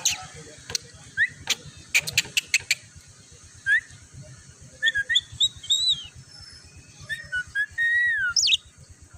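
Javan myna whistling and chirping: short rising whistles among sharp clicks in the first few seconds, then runs of varied chirps and warbling whistles from about five to eight and a half seconds in.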